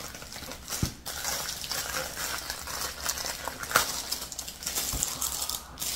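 Paper and plastic gift wrapping rustling and crinkling as it is pulled off by hand, with a few sharp clicks and taps.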